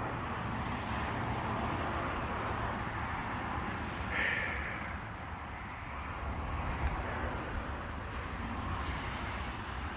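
Steady rushing noise of a thunderstorm, rain and wind with a low rumble underneath, and one brief louder sound about four seconds in.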